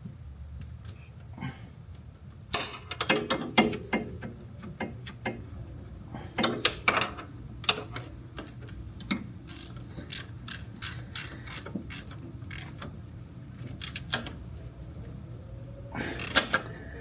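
Hand ratchet wrench clicking in short irregular runs as a nut on the shift cable is run down and tightened, with a louder cluster of clicks near the end.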